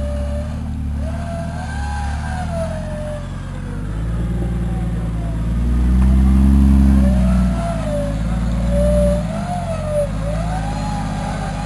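Engine of an off-road Jeep rock crawler running under load as it climbs a rocky ledge, revving up to its loudest about six seconds in and easing off again. A high whine rises and falls with it.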